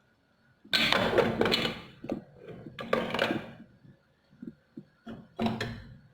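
Kitchen handling noises as ingredients are put into a cooking pot: three rustling, clattering bursts, the first the longest and a shorter one near the end, with small knocks between them.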